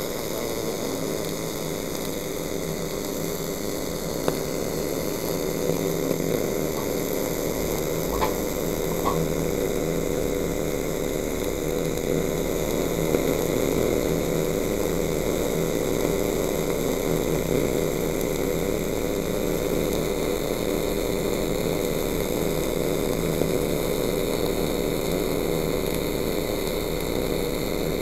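STT (surface tension transfer) short-circuit wire-welding arc running steadily through a downhill root pass on pipe, DC+ at about 106–129 A: a continuous hissing buzz with a few faint crackles.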